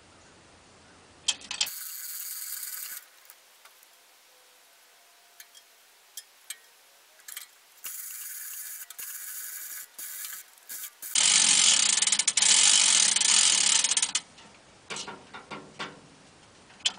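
Manual chain fall being worked in spurts: the chain rattles and the ratchet clicks. It is loudest for about three seconds just past the middle, with scattered clicks between the pulls.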